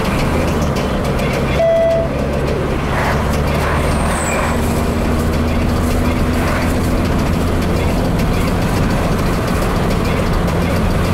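In-cabin sound of an Opel Astra Coupe's 2.0-litre engine running steadily at road speed, with tyre and road noise. A short beep sounds about one and a half seconds in.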